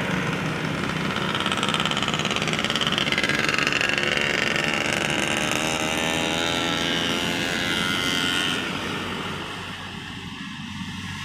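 A heavy road vehicle passing close by, its engine and tyre noise loud and sliding in pitch as it goes past, then fading away about nine seconds in.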